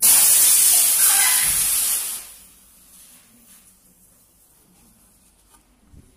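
A loud rushing hiss like compressed air or spray, starting suddenly and lasting about two seconds before dying away, with a faint thump near the end.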